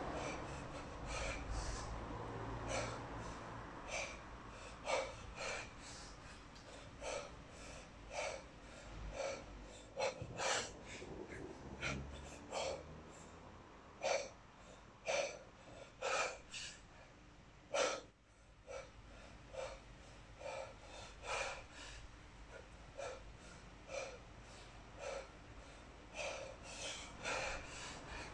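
A man's short, sharp breaths, about one a second, forced out through nose and mouth while snatching a 32 kg kettlebell overhead without a break. This is the paced breathing of a kettlebell-sport snatch set under heavy load.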